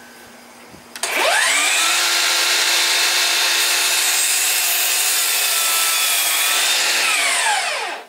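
DeWalt FlexVolt cordless miter saw spinning up about a second in, running at a steady high whine as the blade is brought down through a 2x6 board, then winding down near the end.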